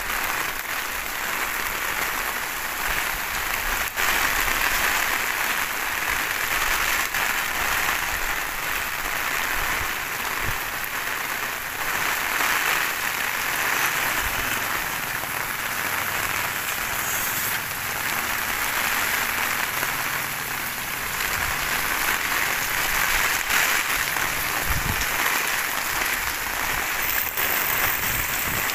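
Heavy rain pouring steadily, a dense even hiss of drops that holds at the same level throughout.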